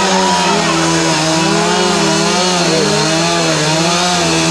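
Two-stroke chainsaw running at high revs as it cuts the end off a log, its pitch wavering up and down.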